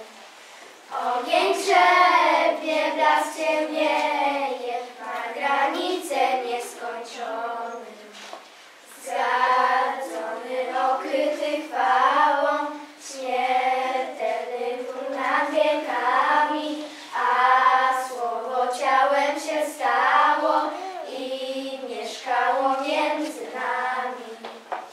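A small group of children singing together, phrase by phrase, with short pauses between lines.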